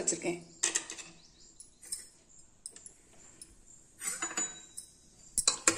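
Scattered light clinks and knocks of a metal utensil against an aluminium pot, with a sharper cluster of clinks near the end.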